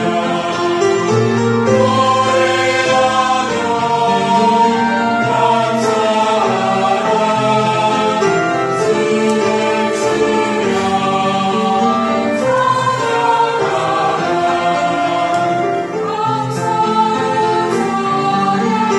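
Church choir singing a sacred praise song in parts, many voices together.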